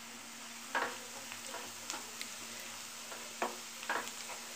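Chopped onions and spices frying in oil in a nonstick kadai with a steady sizzle, while a spatula scrapes and stirs through them in several short strokes.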